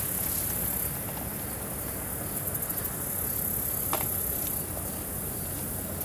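Crickets singing in a steady high-pitched chorus, pulsing in places, over a low rumble, with one short click about four seconds in.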